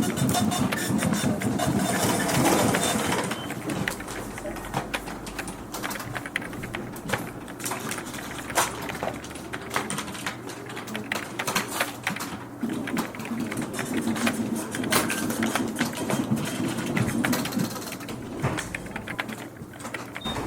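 Office ambience: office machinery running with a steady low hum under dense, irregular clicking, and a few short high beeps near the start and again near the end.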